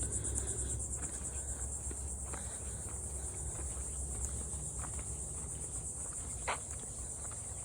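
Steady high-pitched trilling chorus of crickets, with a low rumble underneath and a few faint ticks, the clearest near the end.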